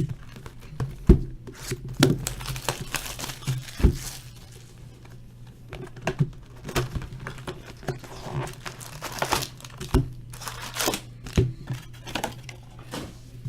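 Trading-card packaging being torn open: crinkling and tearing of the box wrap and pack wrappers, with irregular crackles and a few sharper taps. A low steady hum runs underneath.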